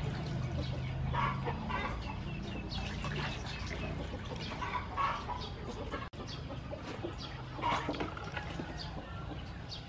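Chickens clucking, short separate calls scattered through, several of them close together in the first half.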